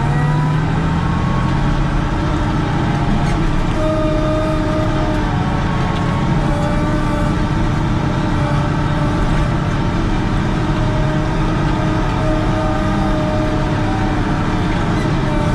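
Volvo 4400 wheel loader's diesel engine running steadily under load as it pushes snow with its blade, heard from the cab: a deep drone with several steady whining tones over it.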